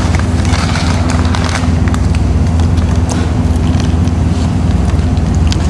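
Steady low machine hum, with scattered light clicks and crackles over it.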